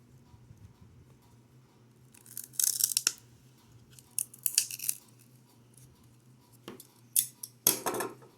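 Plastic card packaging being cut and torn open in a series of short, crackly bursts, the loudest near the end.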